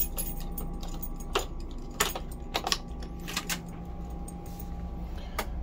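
A steady low hum with a handful of short, sharp clicks and taps scattered through it.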